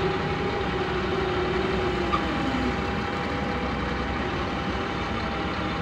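Crawler excavator's diesel engine running steadily as the machine works, with a steady tone that dips slightly in pitch about two and a half seconds in.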